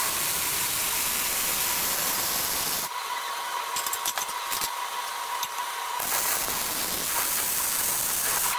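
Arc welding on steel: the arc crackles and hisses steadily for about three seconds, then stops. A gap of about three seconds follows with a few clicks of handling, and then the arc strikes again and runs on.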